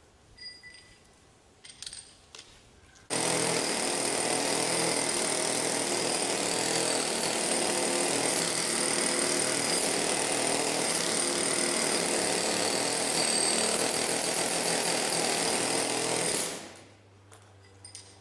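Handheld pneumatic rock drill boring into granite, starting suddenly about three seconds in, running steadily, then cutting off near the end. A few light metallic clinks come before it starts.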